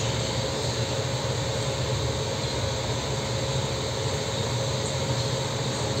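Steady background hum and hiss, constant throughout, with a low hum and a fainter higher tone and no distinct clicks or knocks.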